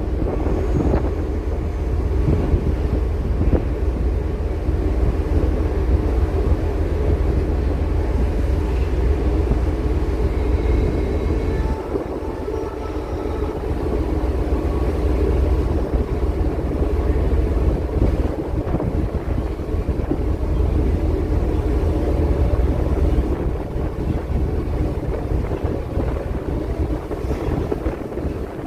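Strong wind buffeting the microphone over the steady low rumble of a ship's engines as it berths.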